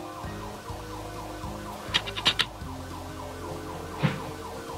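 A few sharp clicks and taps of makeup tools against an eyeshadow palette, a quick cluster about two seconds in and one more near the end, over steady held tones in the background.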